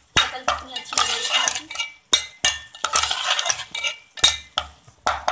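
A metal spoon scraping and knocking against a steel pot while stirring minced meat frying with spices. The scraping comes in bursts, broken by several sharp knocks of spoon on metal.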